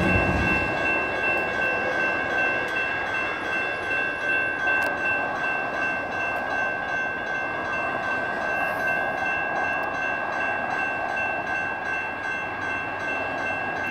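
Grade-crossing warning bell, a General Signals Type 2 electronic bell, ringing continuously in rapid strokes as the crossing activates and the gates come down, over a steady background rush.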